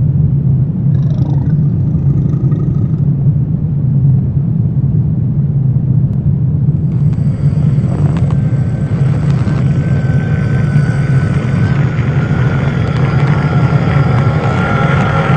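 Steady, loud low rumbling drone of a dark horror ambience track. About seven seconds in, a hissing higher layer with a faint thin tone joins it, along with a few brief clicks.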